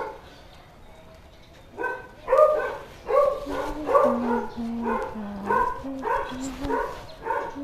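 A dog barking over and over, about two barks a second, starting about two seconds in.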